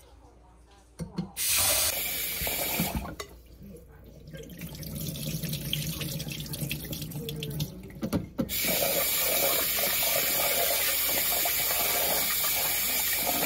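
Kitchen tap running into a stainless-steel sink while rice is washed by hand in a rice cooker's inner pot. The water runs briefly about a second in, drops to quieter splashing and handling in the middle, then runs steadily over the last five seconds.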